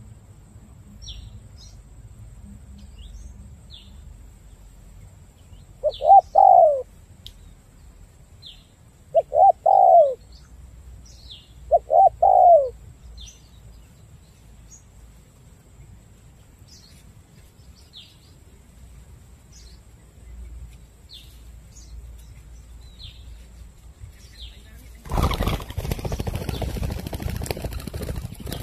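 Spotted dove cooing: three short coo phrases about three seconds apart, with faint high chirps repeating throughout. Near the end a loud rough rustling noise starts and keeps on.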